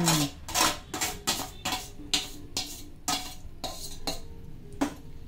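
Steel spoon knocking and scraping against a steel bowl and pot as toor dal is pushed out into jaggery syrup: irregular metallic clinks, two or three a second.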